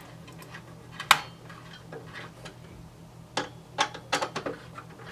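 Sharp clicks and light knocks of small hard parts being handled inside a desktop computer during a CPU swap: one loud click about a second in, then a quick run of clicks and taps near the middle.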